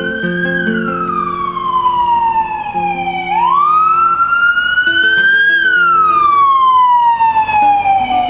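Emergency vehicle siren in a slow wail. It is loud, its pitch climbing quickly and then falling away over about three seconds, twice.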